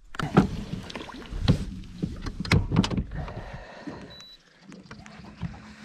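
Knocks and clunks of someone moving about in a small fishing boat, several sharp ones in the first three seconds, over a low rumble.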